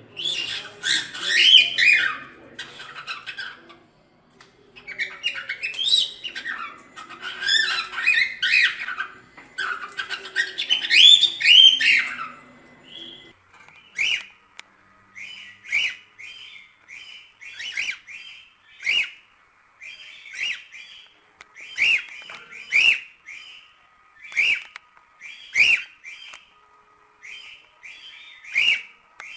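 Cockatiel singing: warbling, chattering phrases for about the first thirteen seconds, then a change to short, sharp chirps repeated about one and a half times a second.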